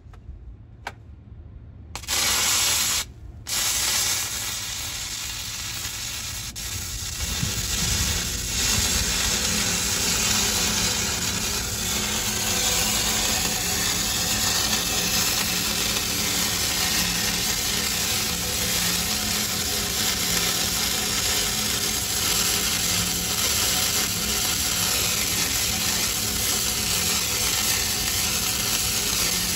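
Stick (shielded metal arc) welding arc on a steel pipe: the arc strikes about two seconds in, cuts out briefly, then is struck again and sizzles steadily as the electrode burns.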